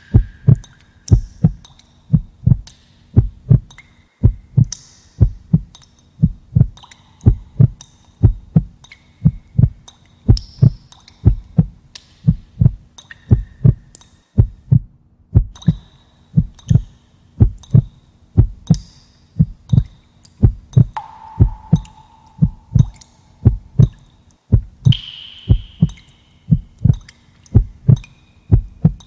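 Heartbeat sound effect: a steady, even lub-dub rhythm of paired low thumps that runs on without a break.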